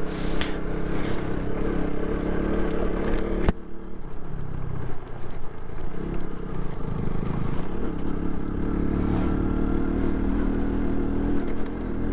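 Motorcycle engine running steadily while riding. The sound changes abruptly about three and a half seconds in, when the hiss above it drops away and the engine runs on alone.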